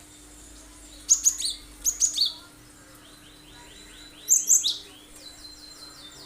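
Cinereous tit (gelatik batu) singing: three bursts of loud, sharp, high notes, with quicker runs of softer repeated notes between and after them.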